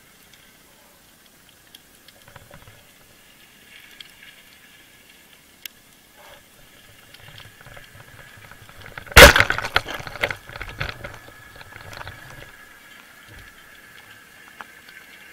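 Speargun fired underwater: one sharp, very loud crack about nine seconds in, followed by a few seconds of rapid clicking and rattling.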